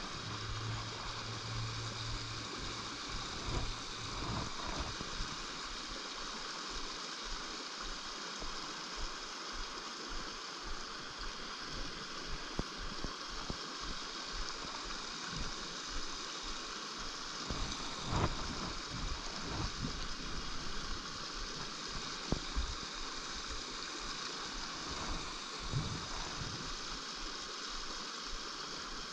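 Small woodland brook running, a steady rushing and gurgling of water, with occasional faint knocks.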